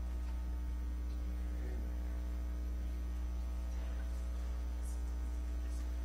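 Steady electrical mains hum on the recording, a constant low drone with overtones. A few faint rustles come about four and five seconds in.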